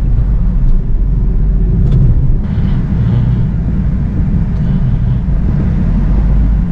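Steady low road and engine rumble inside a Tata car's cabin as it drives, with a slight change in the noise about two and a half seconds in.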